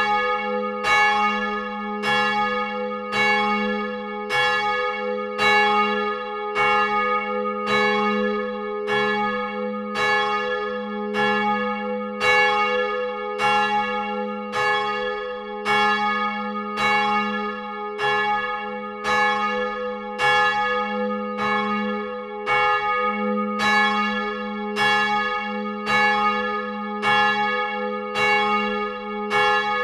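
Church bell swinging in its tower, striking about once a second, each stroke ringing on over a steady low hum.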